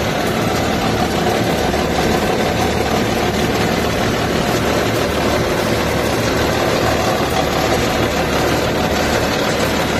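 Caterpillar 320D excavator's diesel engine running steadily, heard close up at the main hydraulic pump.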